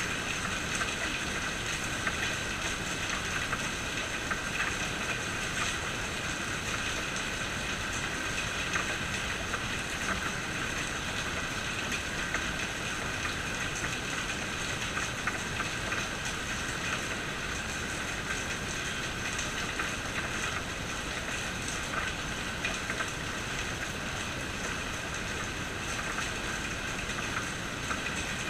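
Steady rain falling: an even hiss with many small drop impacts throughout.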